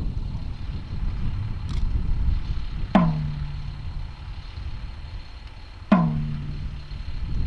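Two deep drum strokes about three seconds apart, each dropping in pitch as it rings out, over a steady low rumbling noise.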